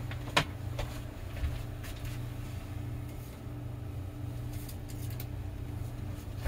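Scattered light clicks and rustles of hands rummaging through a waste bin for a discarded rubber drive belt, over a steady low background hum.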